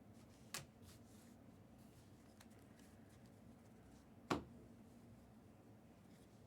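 Trading cards being handled on a table: a light click about half a second in and a louder tap about four seconds in, over a faint steady hum.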